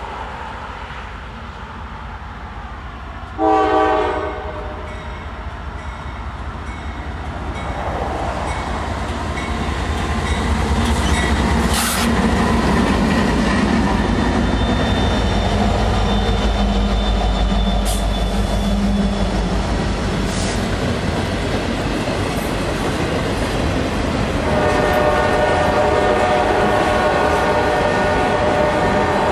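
Norfolk Southern freight train passing close by. A short horn blast sounds as it approaches, then the diesel locomotives' engines run past, and the freight cars roll by clattering over the rail joints. The horn sounds again for several seconds near the end.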